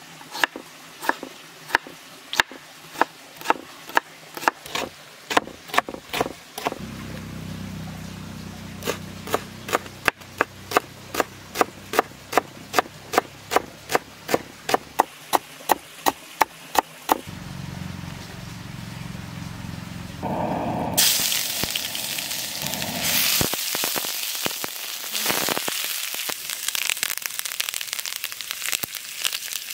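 Chef's knife chopping on a wooden cutting board, steady strokes about two a second, then quicker at about three a second. About twenty seconds in, the sound changes to hot oil sizzling and crackling in a frying pan as curry leaves fry.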